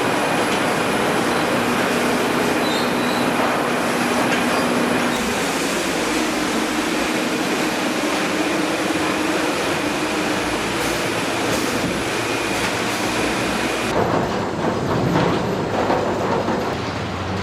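A 48-inch Mellott ring debarker running as logs pass through its rotating scraping blades, a loud, steady machine noise with faint steady whines above it. The sound changes abruptly about 14 seconds in.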